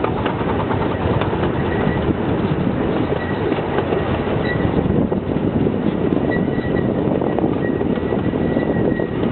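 Small ride-on steam locomotive running along the track: a steady rumble of the engine and wheels on the rails, with a faint high tone coming and going.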